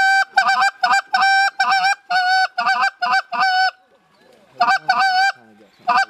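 A hand-held goose call blown in a fast string of honks, each note breaking sharply from a low tone to a high one, with a short pause about two-thirds of the way through before another burst. It is a comeback hail, called to turn geese that are heading toward the decoys.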